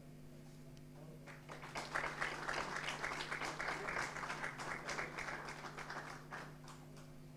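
A small group applauding, starting about a second in, building quickly and dying away near the end.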